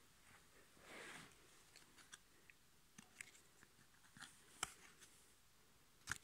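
Faint handling of football trading cards by hand: a soft swish about a second in, then scattered light clicks and taps of card edges, with two sharper snaps, one a little past the middle and one near the end.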